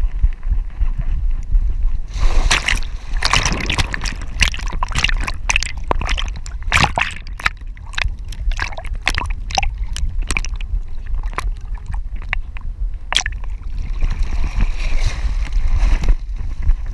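Camera noise from a GoPro HERO4 Silver strapped to a running Dutch Shepherd's harness: a steady low rumble of the dog's movement, with a burst of splashing and rustling about two seconds in, then a run of sharp clicks and knocks, and another rustling burst near the end, as the dog pushes through reeds and undergrowth at the water's edge.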